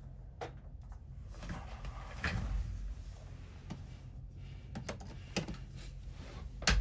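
Scattered light clicks and taps of hands handling a phone and its charging cable on a workbench, with a brief rustle a couple of seconds in and the sharpest tap near the end.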